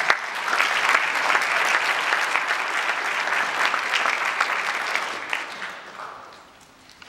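Audience applauding, a dense crowd of hand claps that tapers off and dies away about six seconds in.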